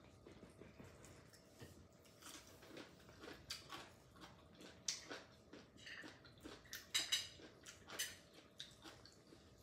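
Quiet eating at a table: scattered soft clicks and taps of plastic chopsticks against dishes, with chewing, a few sharper clicks in the second half.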